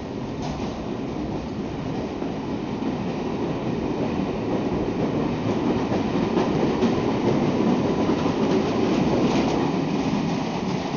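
London Underground Metropolitan line A Stock train pulling out of the platform, its wheels clattering over the rail joints. The rumble grows louder as it gathers speed and eases slightly near the end as the last car leaves.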